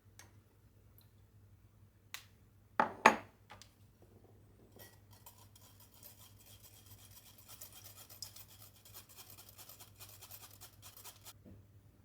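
Two sharp knocks in quick succession, then about six seconds of rapid, steady scratching or rubbing that stops abruptly, over a faint steady hum.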